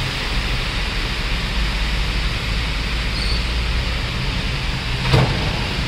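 Steady hiss of heavy rain, with a low rumble underneath and one short knock about five seconds in.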